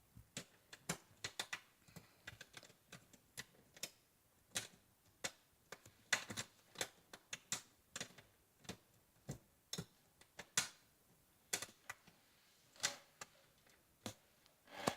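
Bent paper clips working inside a small lock's keyway, making irregular light metallic clicks and ticks as the pins are pushed and the plug is turned.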